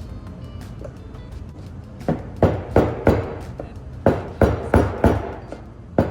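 Hammer blows driving a bearing back into the pinion neck of an S14 240SX power steering rack, seating it over a new seal: two quick runs of four sharp strikes, starting about two seconds in.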